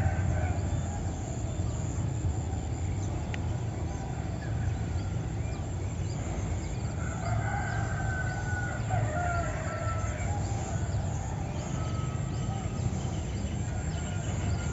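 A rooster crowing: one long drawn-out crow about halfway through, with a shorter one near the start, over faint chirping of small birds and a steady low rumble.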